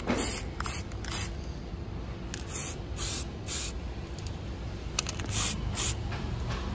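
Aerosol can of black spray paint spraying in a series of short hissing bursts, about ten in all, as a small steel bracket is coated.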